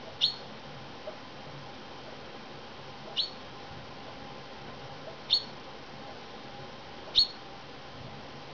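Chaffinch calling: four short, sharp, high notes, each a quick downward slide, spaced about two seconds apart.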